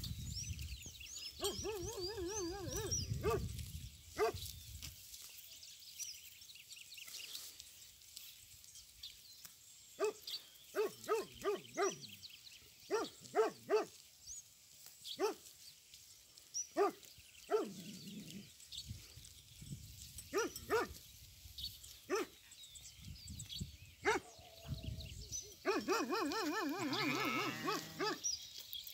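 Maremma sheepdog barking in short single barks, about one a second, through the middle stretch. Sheep bleat in wavering calls near the start and again near the end.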